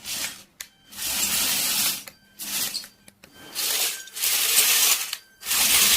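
Remote-controlled Lego tank's electric motor and geared tank treads running in about five short spurts with brief stops between, a mechanical rattle of gears and tracks as it is driven by remote.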